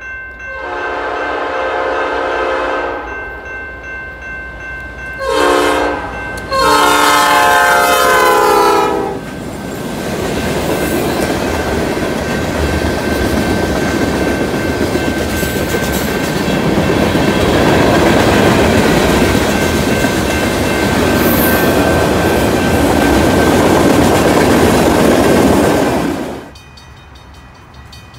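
Freight train's locomotive horn sounding for the grade crossing: a long blast, a short one and another long one, over the steady ringing of the crossing bell. Then the train rolls through with its wheels clattering over the rails, and this noise drops away suddenly near the end.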